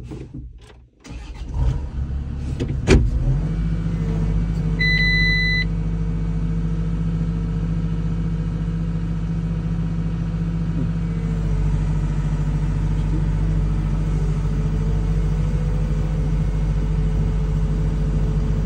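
Cat 306 CR mini excavator's diesel engine, heard from inside the cab, starting about three seconds in after a few clicks and a knock, then running steadily. A short electronic beep sounds about two seconds after it starts.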